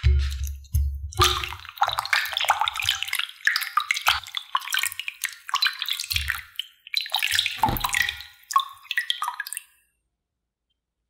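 Hands swishing and lifting thin potato slices in a glass bowl of cold water: irregular splashing and dripping, with a low bump at the start, stopping near the end.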